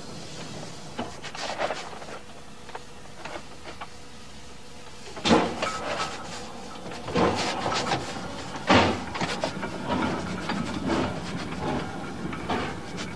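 Stephenson's Rocket steam locomotive (replica) running along the track. A quieter steady running noise comes first. About five seconds in, loud irregular exhaust chuffs begin.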